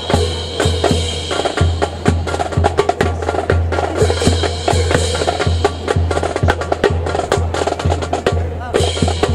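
A rifle drill squad marching in step: many boots striking the pavement together, with rifles clacking, as a fast run of sharp clicks and knocks.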